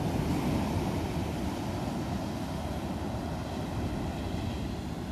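Wind buffeting the microphone over the wash of beach surf: a steady low rumble.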